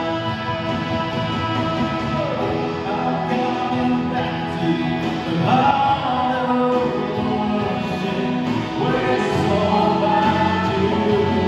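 Worship song played live: several voices singing long held notes together over the band's accompaniment.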